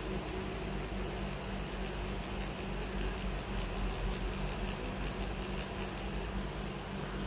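Handheld permanent-makeup tattoo pen running as it works on an eyebrow: a steady low hum with a light, rapid ticking.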